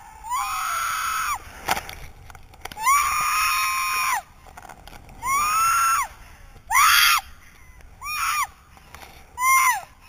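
A woman screaming again and again while bouncing upside down on a bungy cord: six high screams, the first few about a second long and the later ones shorter, each dropping in pitch at the end.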